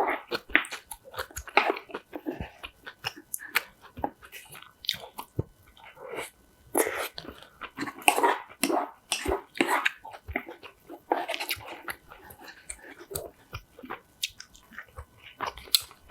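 A person chewing and biting food close to the microphone: irregular crisp crunches among wet chewing and mouth sounds.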